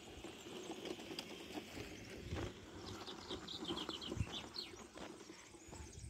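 Footsteps crunching unevenly along a dirt track. About halfway through, a bird gives a quick run of high chirps.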